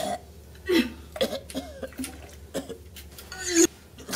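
A person making short, strained coughing and groaning noises in pain, about half a dozen in a row.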